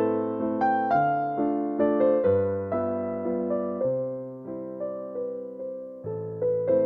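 Background piano music: a gentle melody of struck notes that fade away, over low bass notes that change every second or so.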